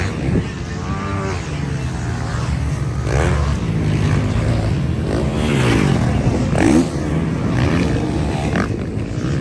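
Motocross dirt bike engines revving up and down as the bikes race on the track, several rising and falling sweeps in pitch, over a steady low hum.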